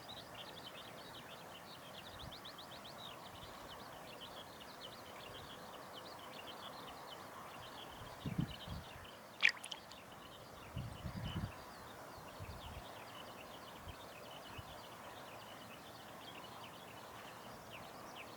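Rural outdoor ambience: a steady background hum with continual rapid, high chirping trills. One sharp high call stands out about nine and a half seconds in, with a few low thumps around it.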